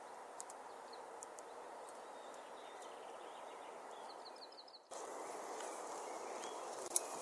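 Quiet woodland ambience: a steady hiss of background noise with scattered small clicks, and a brief run of about five quick, high chirps from a small bird about four seconds in. Just before five seconds in the background turns abruptly louder.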